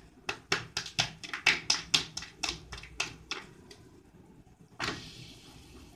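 A quick run of sharp taps, about five a second for some three seconds, then a single tap near the end. These are kitchen taps heard while a roti is being prepared.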